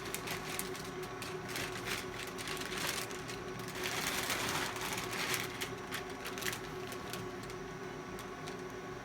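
Diode laser hair removal machine running, its cooling system giving a steady hum with a held tone. Scattered clicks sound over it, and a rush of hiss comes about four seconds in and fades a second or so later.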